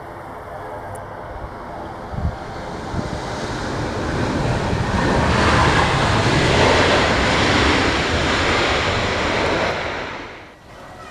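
Jet airliner passing low on its landing approach: an engine roar that builds over several seconds, holds loud through the middle, then drops away quickly near the end.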